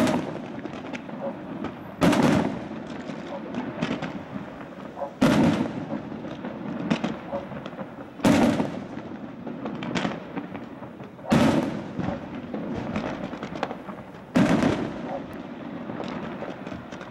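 Fireworks display: aerial shells bursting with a loud bang about every three seconds, six in all, each trailing off briefly, with smaller pops and crackling between them.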